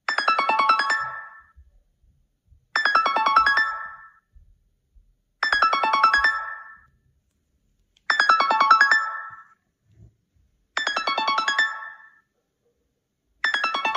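iPhone call ringtone playing: a short, bright run of quick keyboard-like notes, repeating about every two and a half to three seconds with silent gaps between.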